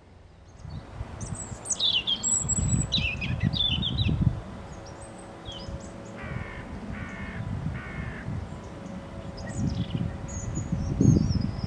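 A European robin singing high, thin, varied phrases, with three harsh caws of a hooded crow about six, seven and eight seconds in, over a low rumble.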